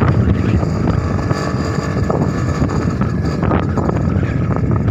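Steady vehicle engine noise from riding along a road, mixed with wind buffeting the microphone.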